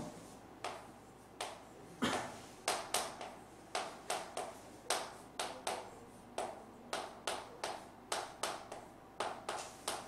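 Chalk on a blackboard: a quick, irregular run of short taps and scrapes, about two to three a second, as characters are written stroke by stroke.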